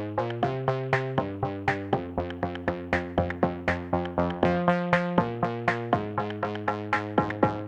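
Electronic background music: synthesizer chords over a steady quick beat, with no speech.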